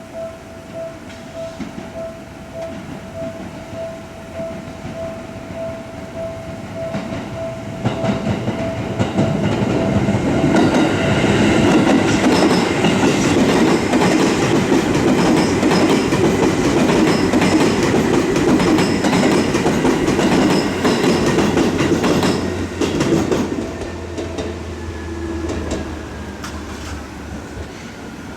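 Level-crossing warning bell ringing at about two strokes a second, then a Seibu electric commuter train passing over the crossing with clattering wheels, loudest for about twelve seconds in the middle before fading, a high whine falling in pitch near the end.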